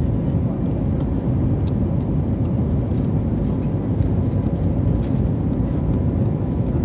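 Airliner cabin noise during the climb after takeoff: a steady low roar of jet engines and rushing air, with a faint steady hum.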